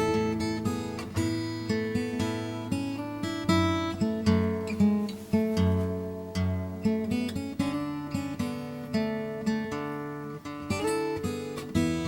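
Background music: acoustic guitar playing a picked and strummed melody.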